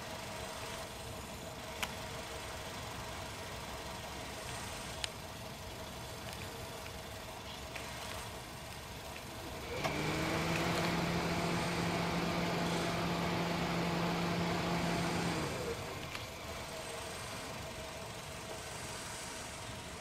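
A steady, low engine hum with a rushing noise comes in about halfway through, holds at an even pitch for about five seconds, then fades. Before it, a low steady background with a few faint clicks.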